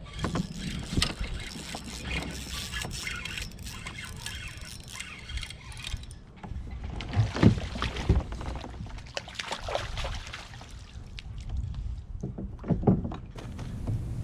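Handling and water noise on a fishing kayak, with a steady low rumble of wind on the microphone and a few sharp knocks about seven, eight and thirteen seconds in.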